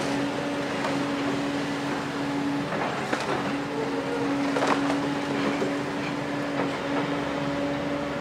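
Doosan DX255LC-5 excavator's six-cylinder diesel (DL06P) running with a steady pitched drone as the grab works, and a couple of sharp knocks about three and almost five seconds in.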